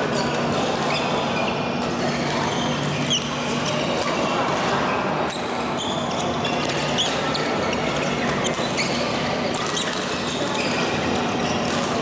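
Badminton rally: repeated sharp racket strikes on the shuttlecock and brief squeaks of court shoes on the floor, over the steady din of other games and voices echoing in a large sports hall.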